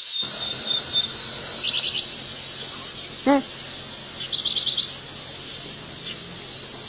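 Forest ambience: a steady, high-pitched insect chorus with two rapid bird trills, and one short pitched call a little past the middle.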